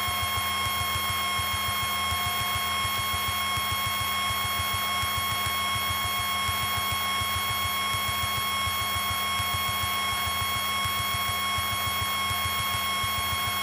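Piper Tomahawk's four-cylinder Lycoming engine and propeller droning steadily in cruise, heard inside the cockpit as a fast, even pulsing with a steady high whine over it.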